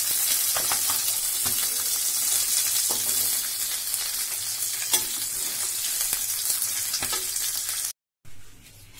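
Bata fish frying in mustard oil in a stainless-steel kadai: a steady hiss of sizzling oil, with a few sharp clicks of a metal spatula against the pan. The fish are fried brown and crisp, at the end of frying. The sizzle cuts off abruptly near the end.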